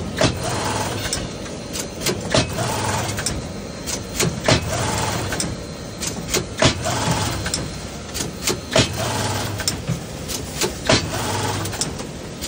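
Automatic coil-winding machine winding brushed-motor armatures, cycling over and over: a motor hum for about a second, then sharp clicks and knocks, repeating roughly every two seconds.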